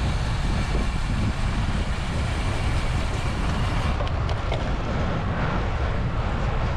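Wind buffeting the camera microphone and tyre noise from a road bike riding at speed in a group, with a few sharp clicks about four seconds in.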